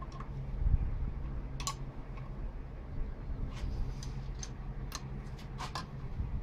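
Sharp metal clicks and clinks of a 13 mm combination wrench working the bolts of a valve spring compressor, a few irregular ticks over a steady low hum.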